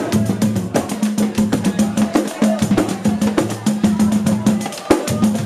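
Live band playing: an electric bass holds a steady low line under fast, even percussion hits, several a second, with a singer at the microphone.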